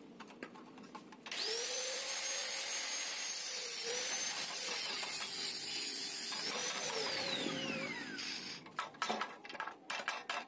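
An electric power tool's motor spins up with a high whine about a second in, runs steadily for about seven seconds, then winds down with a falling whine. Near the end, quick hammer taps strike the steel muffler.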